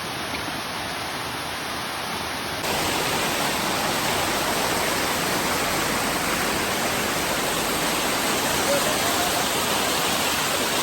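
Waterfall: a steady rush of falling water, getting a little louder about two and a half seconds in.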